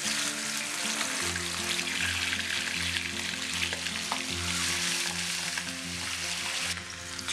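Pieces of marinated fish sizzling as they are laid one by one into hot oil in a frying pan, the oil hissing and bubbling hard around them.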